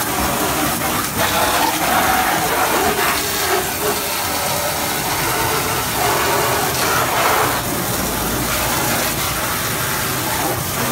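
Coin-operated water cannon shooting a steady hissing jet of water at the targets of an arcade shooting game.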